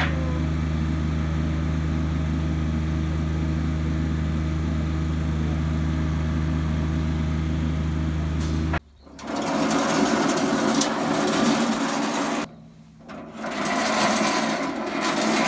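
Electric hydraulic pump of a scissor-lift car repair jig running with a steady hum while raising the vehicle, then cutting off sharply about nine seconds in. Broad noise without any tone follows, with a brief dip near the end.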